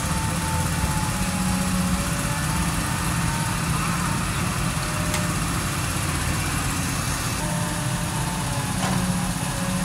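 Heavy diesel engines running steadily from a dump truck, which is lowering its emptied tipper bed, and an excavator, with a faint whine over the rumble.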